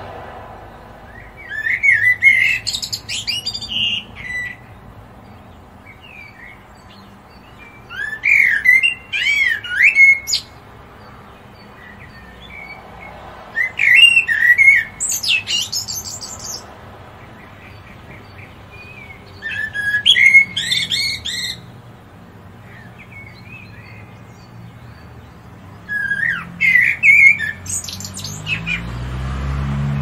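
European robin singing: five short, varied, high-pitched warbling phrases, each a couple of seconds long, with pauses of a few seconds between them.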